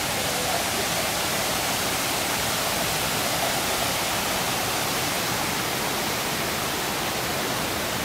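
Shiraito Falls, a wide curved curtain of many thin streams pouring into a shallow pool, making a steady, even rush of falling water. The flow is fuller than usual after two days of rain.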